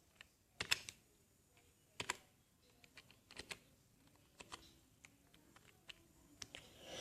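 Computer keyboard being typed on slowly with one hand: sparse, irregular key clicks, some single and some in quick pairs, as the freshly reassembled keyboard is tested.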